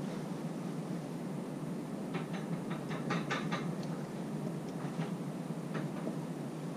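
Light metallic clicks and rattles as the primary chain and clutch basket are handled, in a quick run about two seconds in and a few single clicks later, over a steady low background hum.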